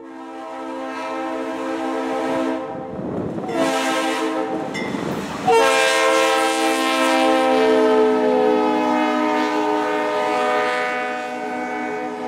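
Norfolk Southern diesel locomotive's air horn sounding a steady multi-note chord, held almost without a break and louder from about five and a half seconds in. A brief rushing noise from the passing train comes about three seconds in.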